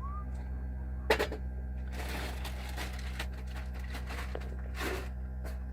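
A steady low hum runs throughout. Over it come a sharp click about a second in, a rustling noise a second later, and another short rustle near the end.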